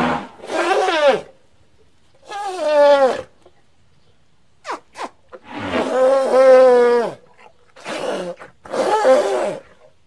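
Sound-effect steppe mammoth calls: a series of about six pitched calls, most sliding down in pitch. The longest, held for about a second and a half, comes just after the middle, with two short clicks a little before it.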